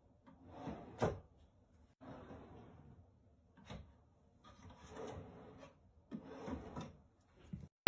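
A wooden drawer sliding in and out on its drawer slides several times: short rubbing slides with light knocks.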